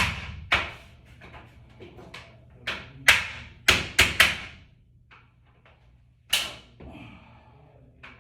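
A series of sharp knocks and clicks, about eight hard strikes at irregular intervals, each ringing briefly, as hard raceway parts are fitted and tapped into place. The strikes bunch together in the middle, and one last knock falls near the end.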